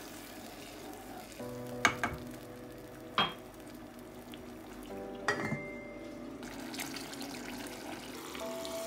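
Wooden spoon stirring a thick tomato sauce in a pot, with the sauce simmering and sizzling throughout. A few sharp knocks against the pot come about two, three and five seconds in.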